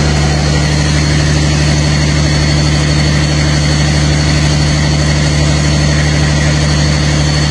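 Rebuilt Caterpillar C13 inline six-cylinder diesel engine running steadily on a test stand, held at a raised speed above idle set from an engine tester.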